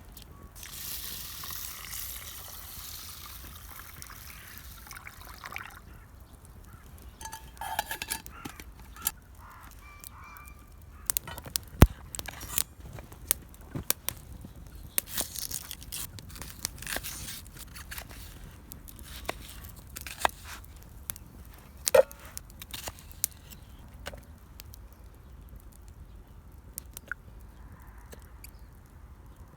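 Camp-cooking handling sounds. A hiss for the first few seconds, then a long run of irregular sharp knocks and clicks with a few short metallic rings, thinning out towards the end.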